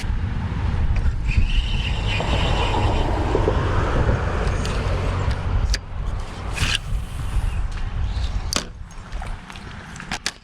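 Car driving, heard from inside the cabin: a steady low road rumble that eases off about seven seconds in, followed by a few sharp clicks and knocks.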